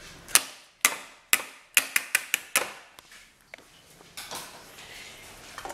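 A stand mixer's wire whisk beater tapped against the rim of the mixing bowl about eight times in quick succession over the first three seconds, sharp knocks that shake the creamed butter and yolk off the wires, followed by softer handling noise.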